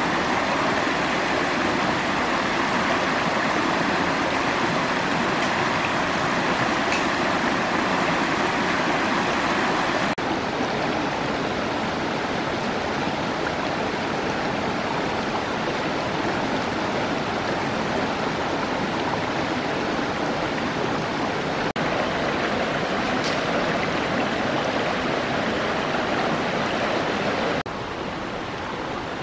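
Stream water flowing and rushing in a steady wash. Its tone changes abruptly about ten and about twenty-two seconds in, and it drops quieter near the end.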